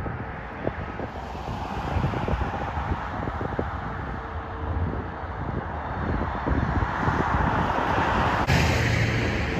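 Road traffic on a busy street, the tyre and engine noise of passing cars swelling as they come close, with wind buffeting the microphone.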